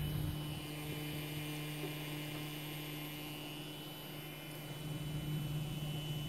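Small 24 V brushless DC motor with built-in driver (BL2854D) running at steady speed with a small propeller on its shaft: a steady low hum with fainter higher tones above it, getting a little louder in the last couple of seconds.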